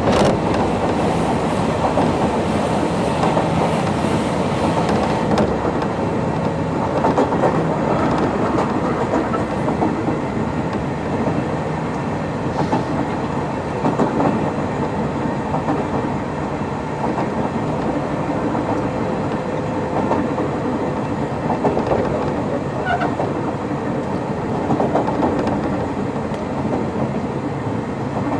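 Inside a Sotetsu New 7000 series electric motor car with Hitachi GTO inverter drive, heard running on the rails: a steady running rumble with faint steady tones and a few short wheel knocks.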